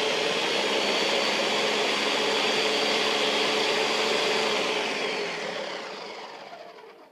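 Countertop blender motor running at high speed, blending an oil-and-vinegar poppy seed dressing. About five seconds in it is switched off and spins down, fading and dropping in pitch.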